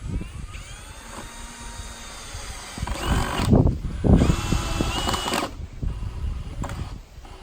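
Power drill driving screws into the wooden frame, running in short bursts. Each burst has a whine that rises in pitch as the motor spins up, then holds steady; the two loudest come about three and four seconds in.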